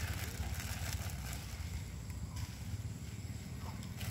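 A steady low rumble, with no distinct events on top of it.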